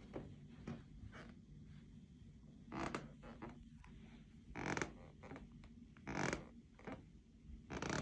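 Footsteps in sneakers across a carpeted floor, each step a soft scuff or creak. The louder ones come about every second and a half, with fainter ones in between.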